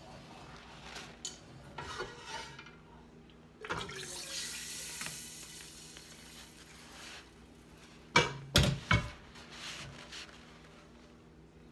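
Hot roux poured from a cast iron skillet into a pot, a steady hiss for a few seconds, then the heavy skillet knocks down onto the gas stove's iron grate with a few loud clanks about eight seconds in.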